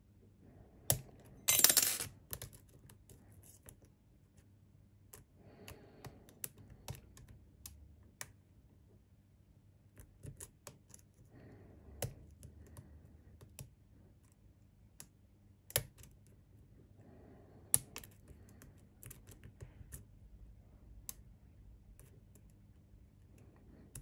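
Metal lock pick clicking and tapping against the pins inside a pin-tumbler lock cylinder under tension from a wrench: scattered sharp, light metallic clicks at an uneven pace, with one louder, longer burst of noise about one and a half seconds in.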